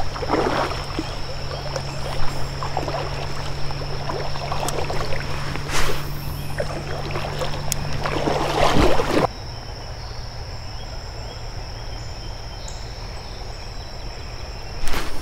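Creek water sloshing and splashing around legs as a person wades, with several louder surges over the first nine seconds. After that it drops suddenly to a quieter, even water sound. A steady high-pitched tone runs throughout.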